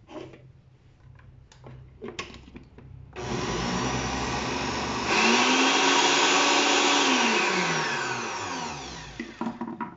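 Oster countertop blender grinding thick cooked pumpkin. It starts about three seconds in and steps up to a higher speed about two seconds later. Its pitch then falls as it winds down and stops near the end. A few light handling clicks come before it starts.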